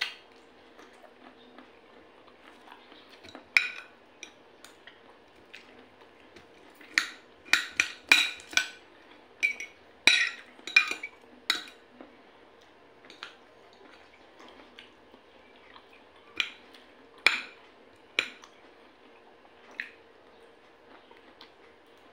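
Metal fork and spoon clinking and scraping against a plate while eating: scattered sharp clinks, with a busy run in the middle and a few single ones later.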